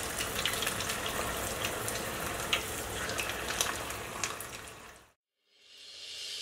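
Battered prawn fritters deep-frying in hot oil: a steady sizzle with frequent sharp crackles and pops, fading out about five seconds in. A soft hiss rises again near the end.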